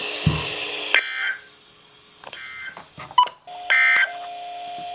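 Radio static, then several short electronic beeps with a few clicks, and a steady tone that comes in about halfway through and holds.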